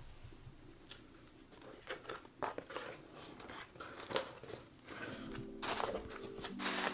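Packaging being handled and opened by hand: scattered rustles, scrapes and light clicks. Soft music comes in about five seconds in.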